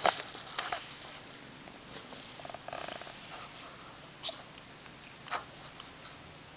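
Kitten hiccuping: a few short, sharp hiccups at irregular spacing, with a short stretch of fast, pulsing purring around the middle.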